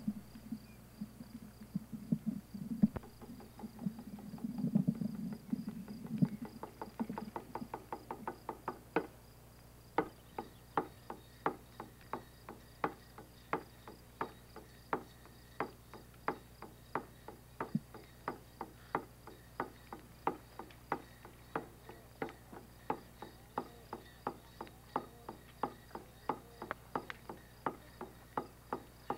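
A drum beating the dance rhythm: a quick run of beats several seconds in, then an even beat of about two strikes a second. Crickets chirp faintly and steadily underneath.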